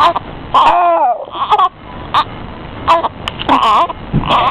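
Baby fussing and crying in short vocal bursts, one with a falling pitch about half a second in and another near the end.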